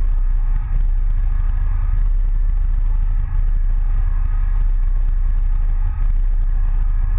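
Boat engine running steadily, a deep, even rumble with no change in speed.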